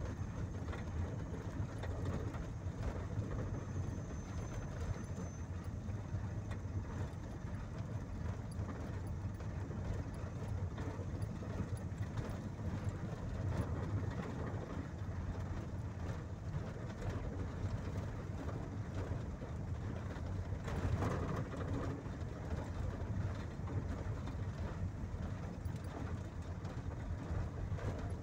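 A vehicle's engine and tyre noise heard from inside the cab while it drives at a steady speed, a low, even hum with faint rattles. It swells briefly a couple of times.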